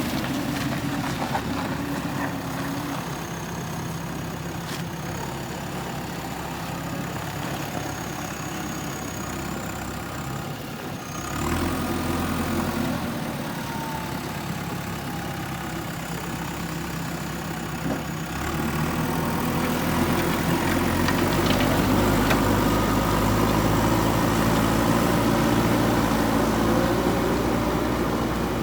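JCB backhoe loader's diesel engine running steadily, rising in level about a third of the way in and again, louder and lasting, from about two-thirds of the way through as it works harder. A thin high whine sounds over it in the first third.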